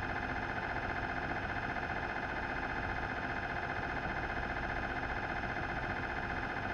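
Philips 1.5T MRI scanner running a scan sequence, its gradient coils making a steady buzz of fast, even pulses.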